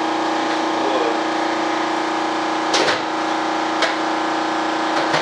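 Electric shop air compressor running with a steady hum. A few sharp knocks sound over it, the loudest just before the middle and two smaller ones later on.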